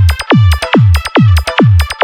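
Electronic DJ remix made for sound-system testing: a heavy kick drum whose pitch drops sharply into deep bass, about two beats a second, with sharp clicks between the beats and steady synth tones above.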